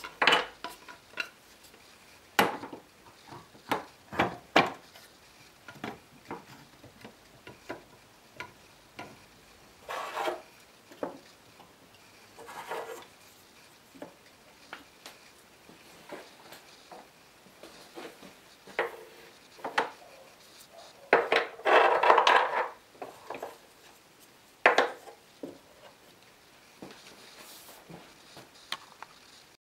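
Wooden chisel rack loaded with chisels being handled and set into a tool cabinet: scattered wooden knocks and clicks, with a longer scraping rub about two-thirds of the way through.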